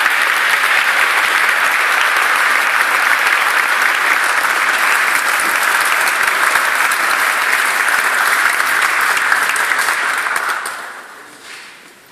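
Concert audience applauding steadily, the clapping dying away near the end.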